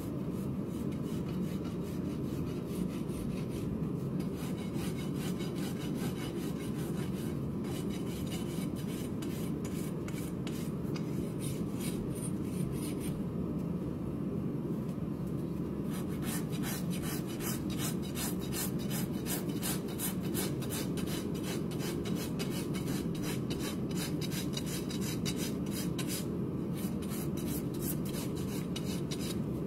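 Farrier's hoof rasp filing a horse's hoof wall in quick, repeated back-and-forth strokes. The strokes come denser and louder in the second half.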